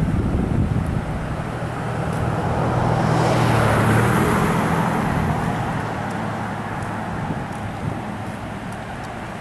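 Steady rush of creek water at a dam, with a road vehicle passing by that swells to its loudest about four seconds in and then fades away.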